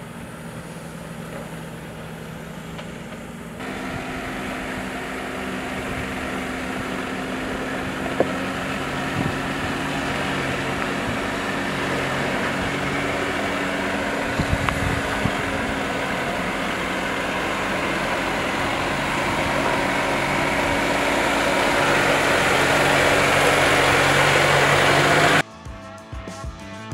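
Jeep Wrangler 4xe Rubicon X running as it climbs over rock: a steady vehicle drone with a low held tone, slowly growing louder. Near the end it cuts suddenly to guitar music.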